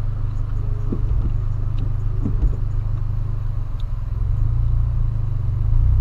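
Steady low rumble inside a car's cabin while it sits at idle.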